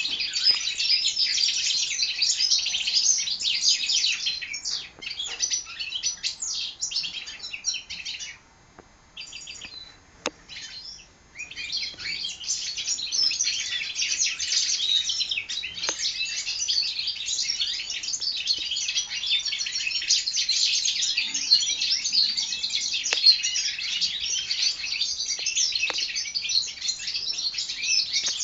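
Four-month-old European goldfinch hybrids singing: a fast, continuous, high twittering song that breaks off for about three seconds a third of the way in, then resumes.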